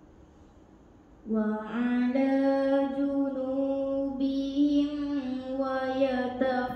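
A girl's voice reciting the Quran in melodic tilawah style. It starts about a second in and moves through long, drawn-out notes with ornamented turns in pitch.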